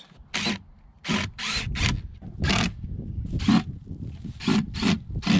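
About nine short, rasping scrapes at irregular intervals: hands and a tool working on a wooden wood duck box during its repair.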